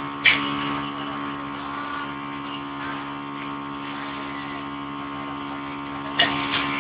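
Steady electrical hum with many overtones, broken by a sharp click about a third of a second in and two more clicks near the end.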